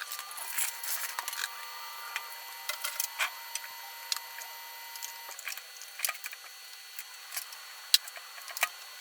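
Scattered light clicks, knocks and rattles of small tools and hard objects being picked up and set down, irregular and a few per second.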